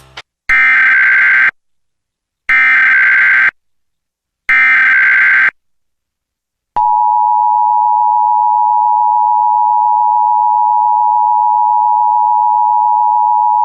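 Emergency Alert System tones: three one-second bursts of SAME digital header data, a second apart, encoding a Severe Thunderstorm Warning, followed about seven seconds in by the EAS two-tone attention signal, a steady dual tone that holds past the end.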